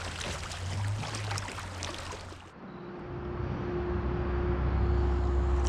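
Kayak paddle strokes and river water splashing against the hull. About halfway through, the sound dulls abruptly into a steady low rumble with a faint steady hum.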